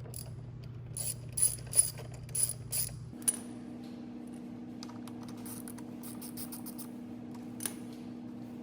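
Ratchet wrench clicking in short bursts as a T45 Torx socket backs out the front brake caliper bolts, over a steady low hum.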